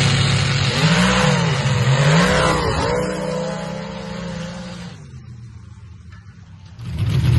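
Mud drag Jeep's engine revving hard as it launches down the dirt track, its pitch rising and falling through the first couple of seconds, then fading away as it runs off down the track. Near the end a loud engine cuts in abruptly.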